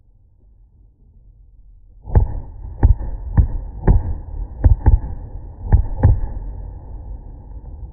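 Fireworks going off close by: about eight deep bangs in quick succession starting about two seconds in, over a continuous low rumble.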